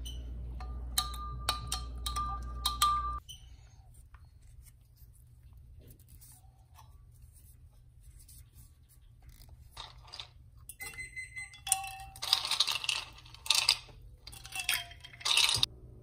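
A drinking glass clinking and scraping in two spells: a quick run of ringing clinks for about three seconds, several seconds of quiet, then more clinks and scrapes from about ten seconds in.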